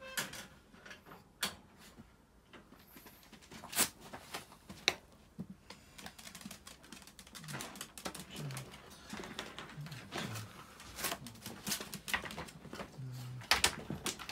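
Irregular sharp clicks and knocks with rustling, from things being handled among wire dog crates. The clicking grows denser about halfway through.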